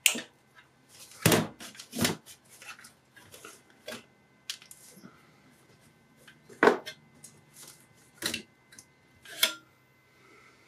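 Hand tools and the parts of an opened computer power supply being handled, with cutters working on the zip tie that holds its fan: a series of separate clicks and knocks, about seven of them sharp and louder, with fainter ticks between.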